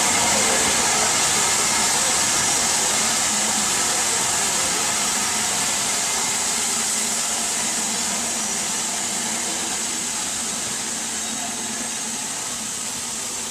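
Steam train pulling into a station: a steady hiss and rumble that slowly gets quieter as the carriages roll past.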